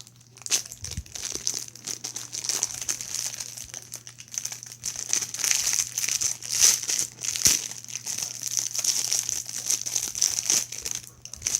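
Rubik's Cube packaging being cut and torn open: continuous irregular crinkling and tearing of the wrapping, with many small crackles.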